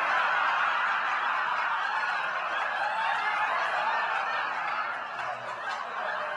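A large audience laughing together, loud and sustained, slowly easing toward the end.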